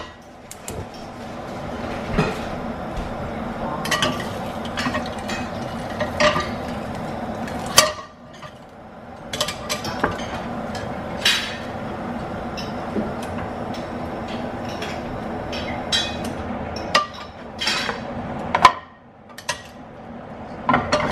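Metal spatula and tongs clinking, knocking and scraping against cast-iron sizzling plates on a gas stove, scattered strikes over a steady hiss.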